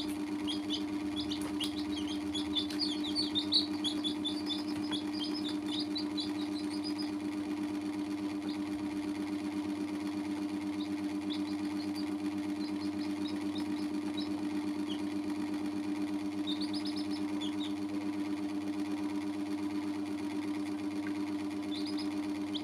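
Young chicks peeping: quick runs of short high peeps, thick for the first several seconds, then in scattered runs. A steady low hum runs underneath throughout.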